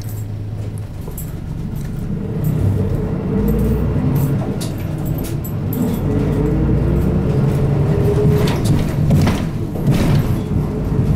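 Isuzu Erga Mio bus's four-cylinder turbodiesel engine heard from inside the cabin: idling for about two seconds, then pulling away and accelerating. The pitch rises, dips briefly at a gear change, and climbs again, with light knocks and rattles from the bus body.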